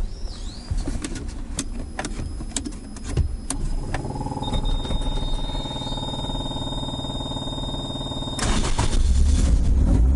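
Toyota AE86's 4A-G engine being started from inside the cabin: a few sharp switch clicks, then the starter cranking steadily for about four seconds with a thin high whine over it. Then the engine catches and runs, much louder.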